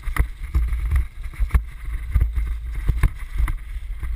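Wind rumbling on a helmet-mounted camera's microphone, with irregular knocks and rattles scattered through it.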